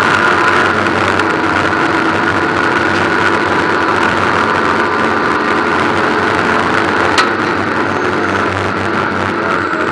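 Ford Puma race car's four-cylinder engine running at speed on a steady note, heard from inside the stripped, roll-caged cabin. A single sharp click about seven seconds in.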